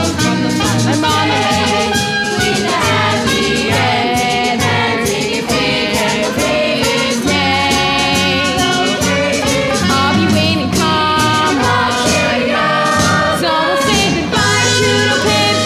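A chorus of young voices singing a lively show tune, with instrumental accompaniment and a steady, repeating bass line.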